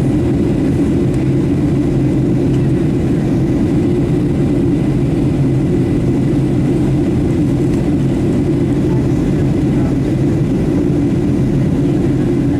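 Steady engine and airflow noise heard inside the cabin of a Boeing 737-700 airliner, an even low rumble that holds constant throughout.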